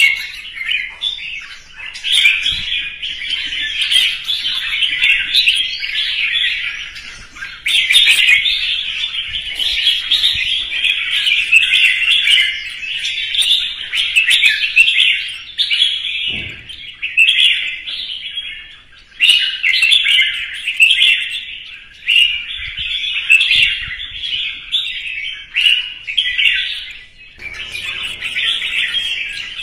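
Red-whiskered bulbul singing its loud competition song: long runs of rapid, chattering whistled phrases, broken by short pauses about a third of the way in, about two-thirds in, and near the end.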